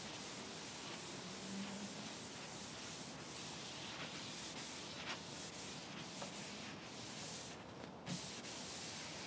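Soft, steady hiss of a shop towel rubbing back and forth over a wood veneer top freshly finished with Danish oil, with a faint tick about five seconds in and again near eight.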